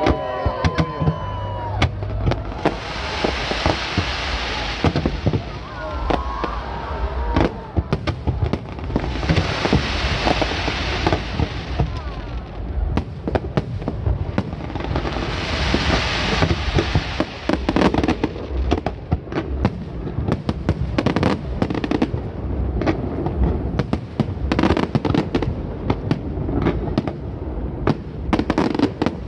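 Aerial fireworks display: a string of sharp bangs and booms, with three stretches of hissing crackle in the first half and the bangs coming thick and fast from about halfway on.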